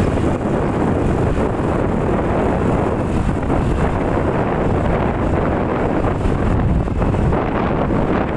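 Steady, loud wind buffeting the microphone of a moving motorcycle, with the ride's engine and road rumble mixed in underneath.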